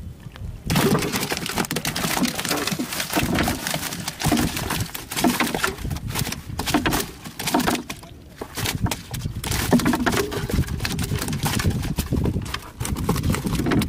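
Live fish flapping in a nylon net inside a wooden boat, with the net rustling as it is handled: a fast, irregular rattle of slaps and clicks that starts under a second in and pauses briefly twice near the end.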